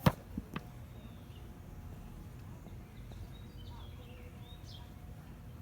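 A cardboard puzzle box being handled: a sharp knock at the start and two lighter taps, then a low steady hum with faint bird chirps in the middle.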